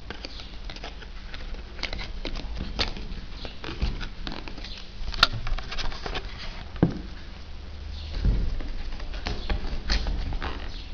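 Cardboard speaker packaging being handled: a run of light rustling, scraping and tapping, with a few sharper knocks as the box is moved and stood on a wooden table.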